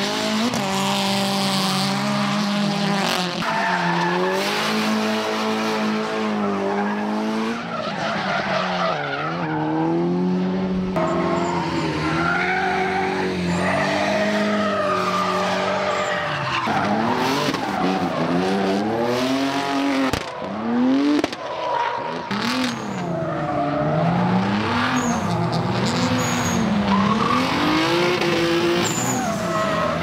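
Drift cars sliding sideways: engines revving hard, pitch swooping up and down with the throttle, over tyre squeal and skid noise. The sound jumps abruptly a few times as one car's run gives way to the next.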